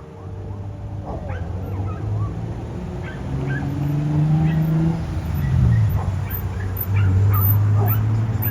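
A fire engine going by with its air horn giving low, held blasts that grow louder, one of them sliding down in pitch near the middle. Short high chirps sound throughout.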